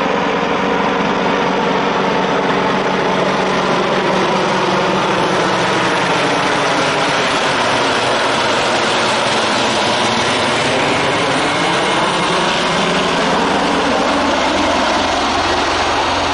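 Airbus H225M Caracal military helicopter flying low overhead, its twin Turboméca Makila turboshaft engines and rotors running loud and steady. Its pitch sinks through the middle and climbs again near the end.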